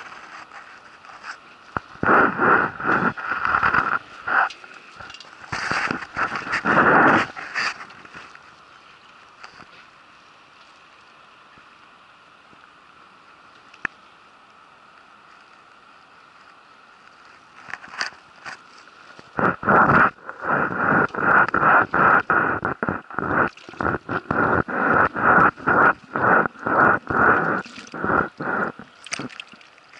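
Water slapping and sloshing against a waterproof camera housing as it bobs at the surface, heard as runs of rapid, irregular knocks with a hollow ring. There are two long runs, separated by a quieter stretch in the middle.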